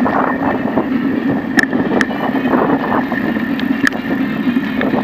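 Ride noise from a camera on a moving bicycle: a steady rumble of tyres on asphalt and wind on the microphone, with a few sharp knocks as the bike rattles over bumps.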